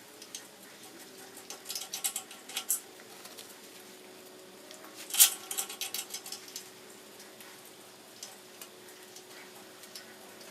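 A 1/2-13 tap being turned by hand to cut threads in a drilled metal plate. Two clusters of sharp metallic clicks and ticks come from the tap and its handle, about two seconds in and about five seconds in, and the second cluster is the louder.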